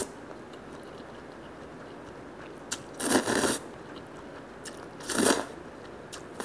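Konjac soba noodles slurped up from a cup, two loud half-second slurps about three and five seconds in.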